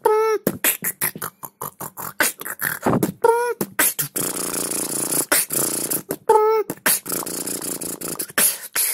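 Human beatboxing: fast, sharp percussive mouth sounds laid in a rhythm, with a short pitched vocal riff that comes back about every three seconds. Around the middle the strokes give way to a steady hissing sound for about two seconds.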